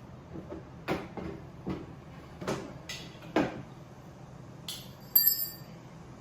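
A series of light knocks and taps from parts and hand tools being handled during assembly, followed about five seconds in by a sharp metallic clink that rings briefly, the loudest sound.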